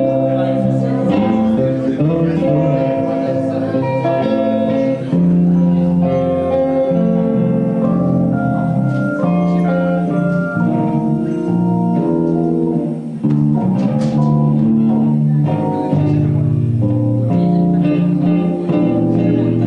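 Live instrumental music from an electric keyboard and a Squier Stratocaster electric guitar playing together, the keyboard holding long chords under the guitar's picked notes.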